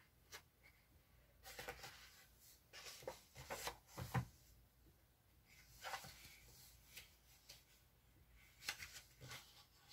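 Faint paper rustles and soft taps as the cover and pages of a paperback picture book are handled and turned: several short rustles a second or two apart.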